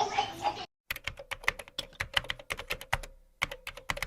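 Rapid run of light clicks, like typing on a keyboard, starting abruptly just under a second in, with a short pause about three seconds in.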